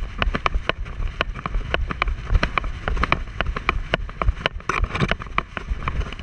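Dog-mounted action camera jostling as the dog moves over rough desert ground. Rapid, irregular knocks and clicks sound over a low wind rumble on the microphone. About five seconds in there is a brief scratchy rush as shrub branches brush past the camera.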